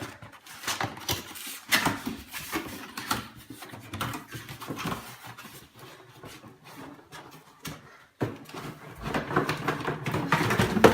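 Cardboard box and plastic packaging being opened and handled by hand, with irregular rustling, scraping and knocks. The rustling grows denser and louder near the end.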